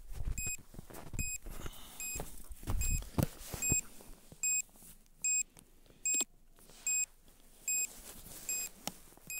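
A short high electronic beep repeating evenly, a little more often than once a second: the SJRC F11s drone system's low-battery warning. A few low handling thumps sound under the first few beeps.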